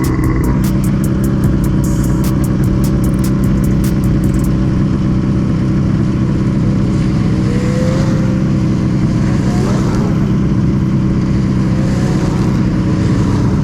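Ski-Doo snowmobile engine running at a steady speed while riding a trail, with rapid sharp clicking in the first few seconds.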